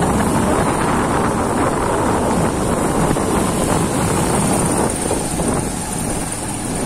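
Wind buffeting the microphone on a moving two-wheeler, over its running engine and the tyres swishing through floodwater covering the road. The noise is steady.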